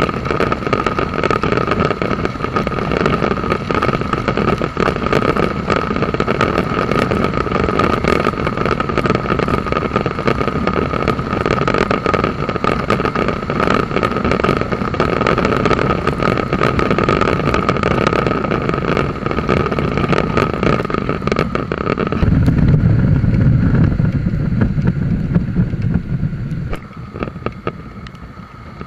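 Suzuki V-Strom motorcycle on the move: engine and wind rush over the microphone, with a steady high whine throughout. Near the end the whine gives way to a deeper rumble for a few seconds, then the noise drops off.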